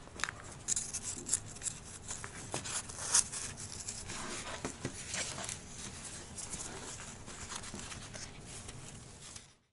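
Handling noise from a foam helmet cheek pad and its fabric cover being worked over it: rustling, rubbing and small clicks, with one sharper click about three seconds in. The sound cuts off suddenly just before the end.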